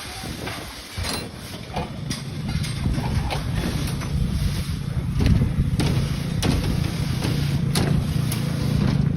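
An engine running steadily, getting louder after about two seconds, with scattered sharp clicks and knocks over it.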